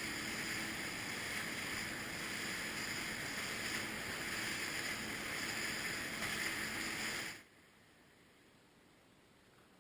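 Motor watercraft running on the lake: a steady rush of water and wind with a faint engine hum. It cuts off suddenly about seven seconds in, leaving a low hiss.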